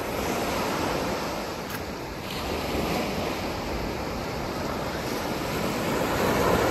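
Sea surf washing onto a rocky shore, swelling and ebbing in waves and growing louder toward the end, with some wind on the microphone.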